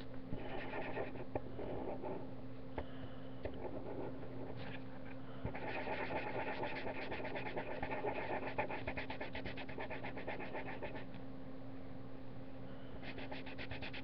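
Crayola felt-tip marker scratching across paper in rapid back-and-forth colouring strokes, heaviest in a long run from about five to eleven seconds in and again briefly near the end, with a steady low electrical hum beneath.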